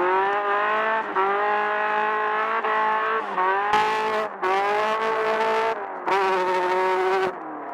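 Class 10 desert-racing buggy engine revving hard at speed, its pitch climbing and dropping several times as the throttle comes on and off. A harsh rushing noise cuts in over it twice, about four and six seconds in.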